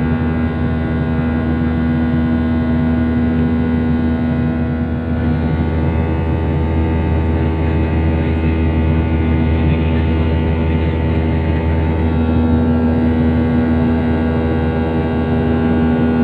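Airplane engines running with a loud, steady drone and a strong held tone over a low hum, unchanging in pitch.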